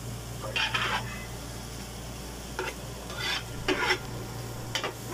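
A metal spoon stirring and scraping inside an aluminium stockpot as onion, garlic and chili sauté in oil, in about five short, irregular strokes over a steady low hum.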